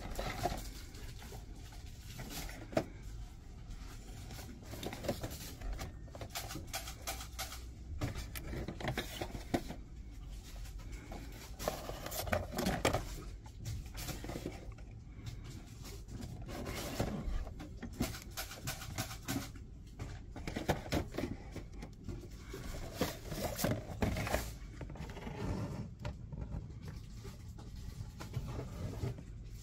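Quiet shop ambience: a low steady hum with scattered light clicks and rustles of handling, as cardboard-and-plastic toy boxes on a shelf are touched.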